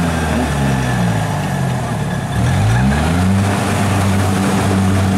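Rice combine harvester engine running steadily; its note sags from about half a second in, then climbs back up around three seconds in.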